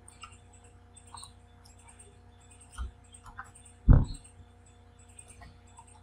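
Scattered computer keyboard keystrokes and mouse clicks as a line of code is edited, with a louder knock about four seconds in.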